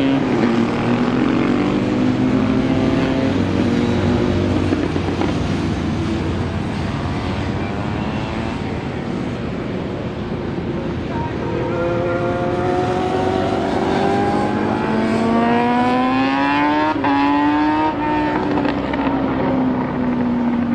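Motorcycle engines running on a race circuit during a parade lap. The pitch falls at the start, then climbs steadily from about halfway as a bike accelerates, breaks briefly near the end and falls away again.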